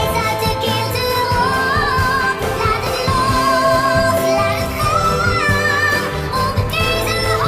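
Female vocalist singing a sustained, wavering pop-ballad melody over instrumental backing, her voice treated with an added 'angel' sound effect.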